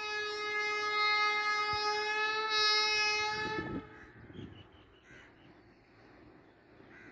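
Hitachi diesel locomotive's horn sounding one long, loud, steady blast that cuts off after about three and a half seconds, leaving a faint low rumble from the approaching train.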